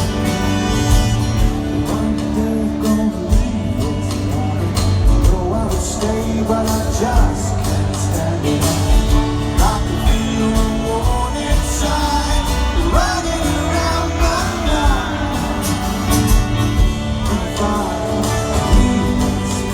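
Live rock band playing a song in a stadium, with guitar, a steady drum beat and a sung vocal line.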